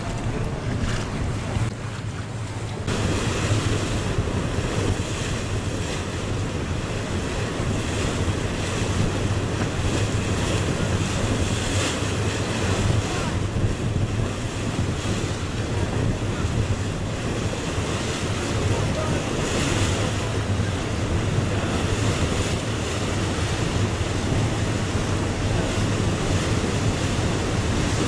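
Wind buffeting the microphone on a moving river boat, over water rushing past the hull and the boat's steady low engine hum. The noise grows fuller about three seconds in.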